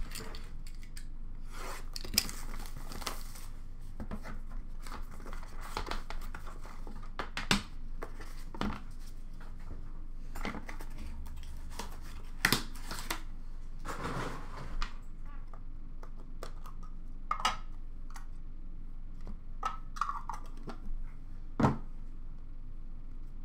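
Packaging torn open and crinkled as a sealed trading-card box is unwrapped, with scattered light clicks and knocks from cards and cardboard being handled. The tearing and rustling is busiest for the first fifteen seconds or so, then thins to occasional clicks.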